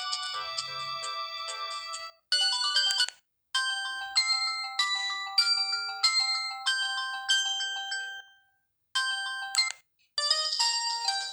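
Samsung GT-E1080F polyphonic ringtones playing: short electronic melodies of bright, clean synthesized notes, broken by brief silences about 2, 3, 8 and 10 seconds in.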